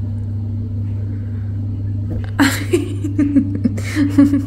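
A steady low hum throughout. About halfway through, a woman laughs softly in breathy bursts for a couple of seconds.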